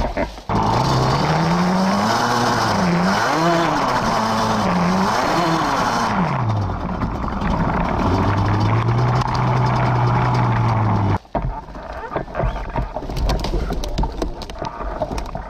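Yamaha Banshee two-stroke twin ATV engine revving up and down over and over for about six seconds, then running at a steady pitch. About eleven seconds in the throttle is snapped shut and the sound drops sharply to a choppy, uneven putter.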